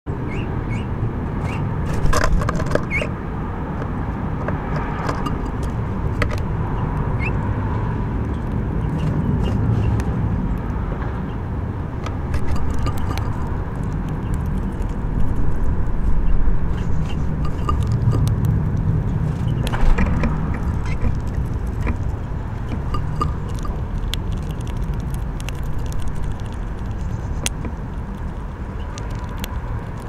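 Steady low rumble of road traffic, with scattered light clicks and taps.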